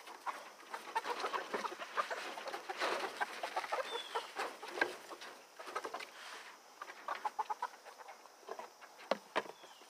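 A flock of young chickens, about three to four months old, clucking and peeping in a busy run of short calls that thins out later, with a faint falling peep about four seconds in. Two sharp knocks sound near the end.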